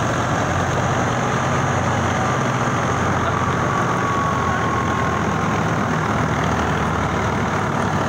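Tractor-powered wheat thresher running steadily: the Ghazi tractor's diesel engine working the threshing drum as wheat bundles are fed in, a constant drone with a faint high whine.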